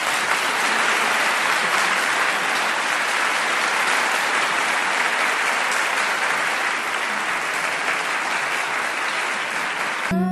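Audience applauding steadily, then cutting off abruptly near the end.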